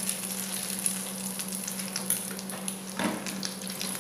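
Egg omelette frying in margarine in a nonstick frying pan: a steady sizzle full of small crackles, with the clicks and scrapes of a silicone spatula and fork turning the egg.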